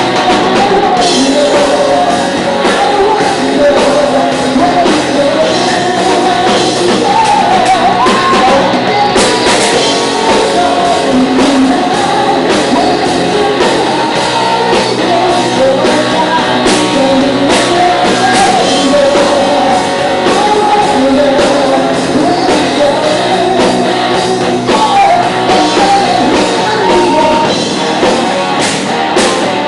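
Live rock band playing loudly, a singer's voice over drums and guitar.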